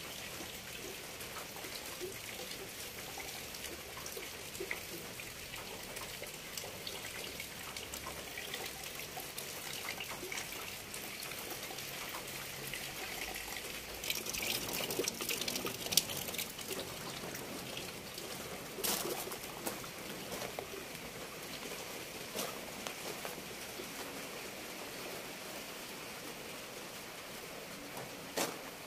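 Light rain falling and dripping: a steady hiss with scattered small drip ticks, heavier for a couple of seconds around the middle, with a few sharper clicks.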